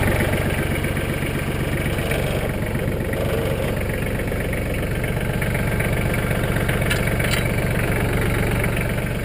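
Mahindra Max 25 compact tractor's diesel engine idling steadily, with two light clicks about seven seconds in.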